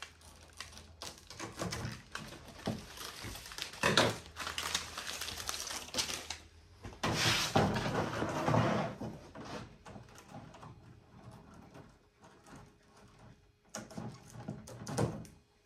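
Handling noises: Velcro strips and a galvanized sheet-metal panel rustling and scraping as they are moved and pressed together on a workbench, with scattered light clicks and knocks. The loudest rustling comes about 4 s in and again for a couple of seconds about 7 s in.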